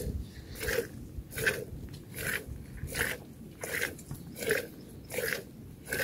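A cow being milked by hand into a small vessel: regular squirts of milk, about one every three-quarters of a second.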